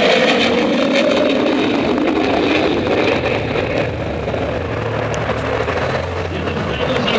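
F-16 fighter jet's engine roar as it flies over, a loud, noisy roar whose pitch wavers and sags as it passes. The roar eases a little after about four seconds.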